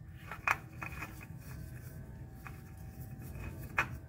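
A few light clicks and taps as a new spin-on oil filter is handled and brought up against its mount, with a louder tap near the end, over a low steady hum.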